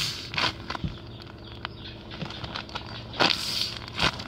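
Homemade paper squishy crinkling and rustling as it is squeezed and kneaded in the hands, in short bursts, the longest about three seconds in.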